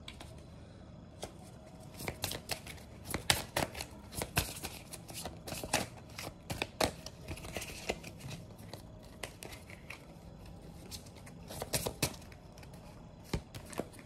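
A tarot deck being shuffled and handled by hand: irregular soft snaps and taps of the cards, thickest in the first half, with a few more near the end as a card is laid on the table.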